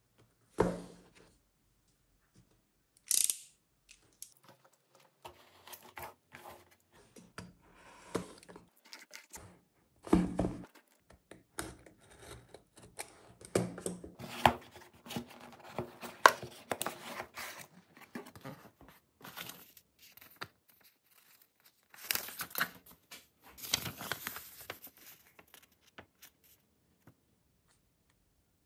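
Packing tape being cut and torn off a cardboard parcel, with cardboard flaps and a folded paper letter handled and rustled in between scattered taps on the table.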